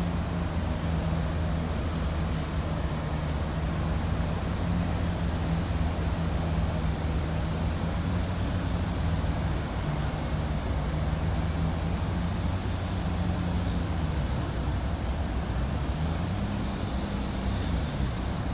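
Ferry engine running steadily with a low hum. Near the end the engine note drops and then climbs again, as the throttle is eased and opened.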